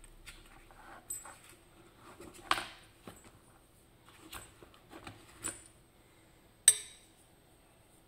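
Scattered metallic clicks and clinks of a small pin-tumbler lock cylinder and a metal follower rod being handled and set down during disassembly. Two knocks stand out as louder: one about two and a half seconds in and a sharp one about a second before the end.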